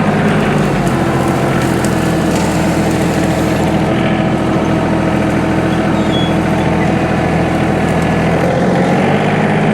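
John Deere 2032R compact tractor's three-cylinder diesel engine running steadily, its note shifting slightly about a second in and again near the end.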